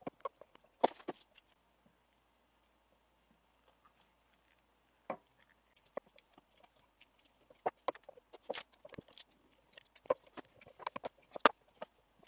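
Irregular small clicks, taps and snips of fly-tying tools and materials being handled at the bench: scissors and pliers working deer hair on a hook. They come sparsely at first, then more often from about halfway.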